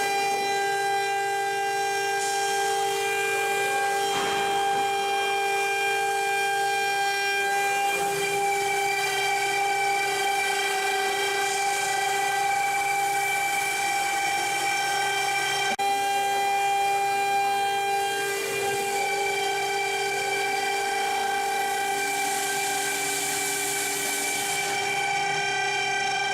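CNC plasma cutter cutting steel: a steady high-pitched whine over a hiss, with its tone shifting slightly a few times.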